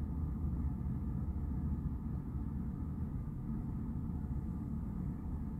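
Freight train rolling past, a steady low rumble as its last cars go by on the rails.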